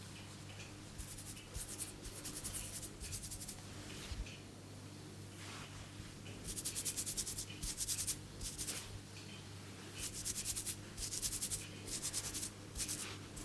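Hands rubbing and pulling hair on the scalp during a head massage, making repeated short bursts of dry, scratchy crackling that grow louder about halfway through. A low steady hum runs underneath.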